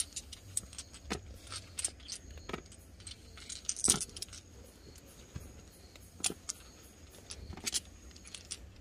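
Domino tiles clicking and clacking against one another as hands shuffle them and draw them from the pile on a bedspread. The clicks are irregular, with the loudest cluster about four seconds in.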